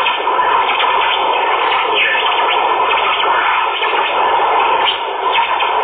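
Radio static: a steady hiss of untuned AM/FM radio noise, with a light crackle and flutter through it.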